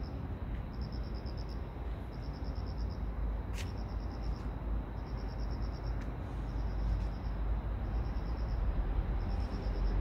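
Cricket chirping: short, rapid pulsed chirps, high in pitch, repeating a little more than once a second over a steady low rumble. A brief sharp click sounds about three and a half seconds in.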